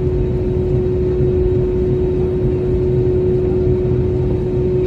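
Airliner cabin noise just after landing: a steady hum with one constant mid-pitched tone over a heavy low rumble.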